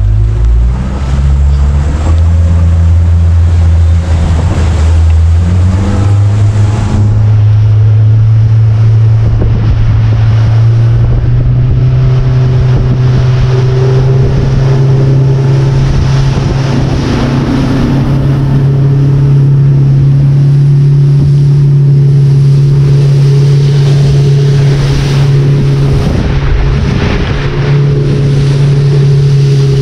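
Fishing boat's outboard motor throttling up, its pitch climbing in a few steps over the first seven seconds or so, then running steadily at speed. The hull slaps through choppy waves with spray and wind over it.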